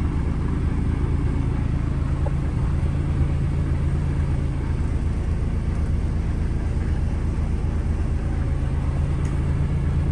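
DAF CF 8x4 concrete mixer truck's diesel engine running steadily at idle, a constant low hum.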